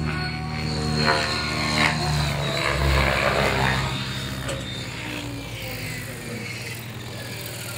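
Radio-controlled model helicopter flying close by, a steady engine and rotor whine. It grows louder to a peak about three seconds in, then fades with its pitch slowly falling.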